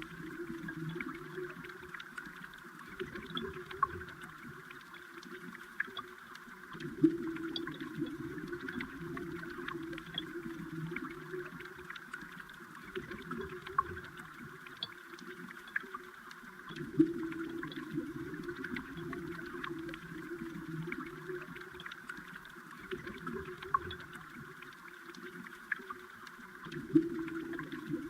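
Stream water heard underwater: a steady bubbling rush with many small clicks and ticks. It swells about every ten seconds, each swell opening with a sharp knock.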